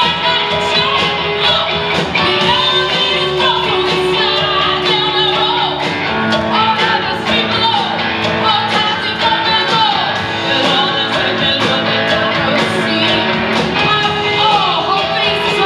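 Live rock band playing: a lead vocalist singing over electric guitars and a steady drum beat, with a backing singer joining in.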